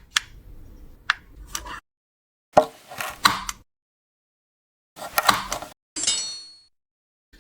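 Parts of a self-rising display stand and its packaging being handled: a series of separate clicks, clinks and short rattling handling noises with silence between them. A brief ringing clink fades out about six seconds in.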